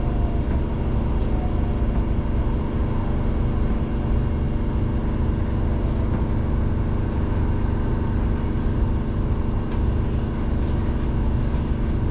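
Singapore MRT train heard from inside the carriage, running into a station and slowing: a steady low rumble of the wheels on the rails under an even hum. About nine seconds in, a thin high-pitched squeal sounds for a second or so as the train brakes toward its stop.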